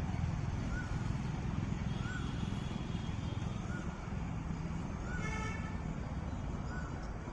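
Birds calling in a field: a short, arched chirp repeated about every second and a half, with one louder, harsher call about five seconds in, over a steady low rumble.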